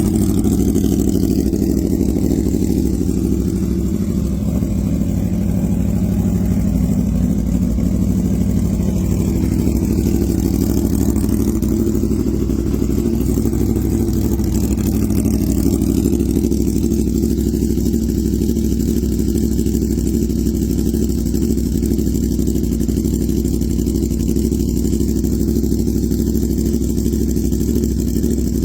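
Aprilia Tuono V4 motorcycle's V4 engine idling steadily through an SC Project CR-T aftermarket exhaust, just after a cold start.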